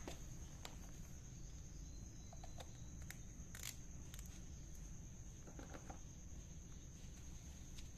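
Kittens shifting about in a plastic tub: scattered light clicks and scratches, with a couple of faint short sounds, over a low steady hum and a constant thin high-pitched whine.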